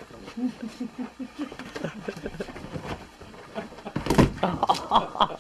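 Mastiff dogs playing: a quick run of short low vocal sounds, then a heavy thump about four seconds in followed by a cluster of sharp clicks and knocks.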